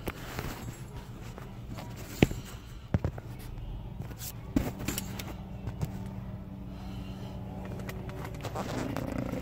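A few sharp clicks and knocks of small plastic and metal parts being handled, the loudest about two seconds in, over a steady low hum: push-on connectors being fitted to the back of a rocker switch.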